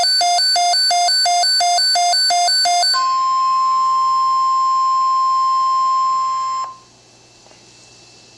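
A Midland WR-120 weather radio's alert alarm beeping fast, about four beeps a second, for the first three seconds. Then the NOAA Weather Radio 1050 Hz warning tone sounds as one steady, high, pure tone and cuts off suddenly, leaving faint radio hiss.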